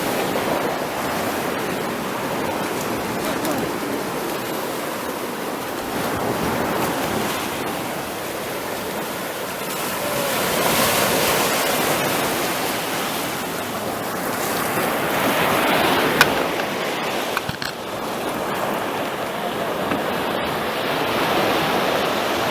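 Sea waves washing onto the shore, the surf noise swelling and falling back every few seconds. A single sharp click about sixteen seconds in.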